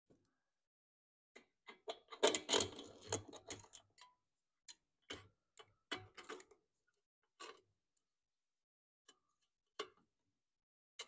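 Small metal clicks and clinks of a mower carburetor being handled and worked onto its mounting studs over a gasket, with a screwdriver through it. A dense run of clatter about two seconds in, then scattered single clicks.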